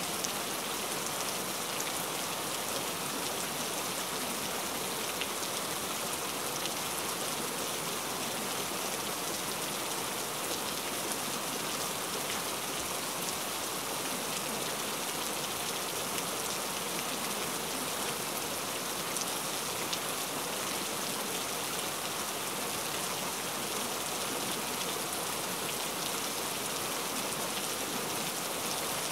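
Steady rain: an even hiss with fine scattered drop ticks.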